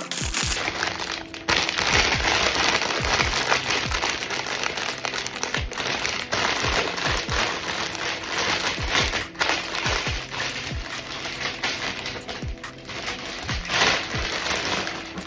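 Background music with a repeating low beat, over the steady crinkling and crackling of blind-box packaging being handled and opened.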